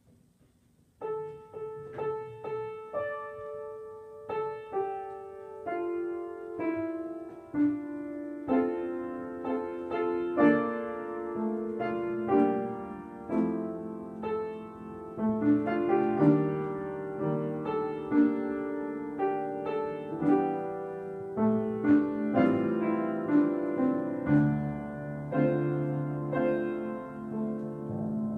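Solo piano playing, starting about a second in, with its notes and chords struck and left to ring.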